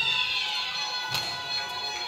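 Badminton rackets striking the shuttlecock in a rally, a sharp hit about a second in and a fainter one near the end, over a held, music-like set of steady tones that drifts slightly lower in pitch.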